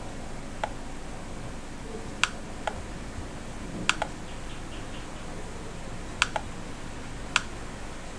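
Computer mouse clicking: about eight sharp, scattered clicks, some in quick pairs, over a steady faint microphone hiss.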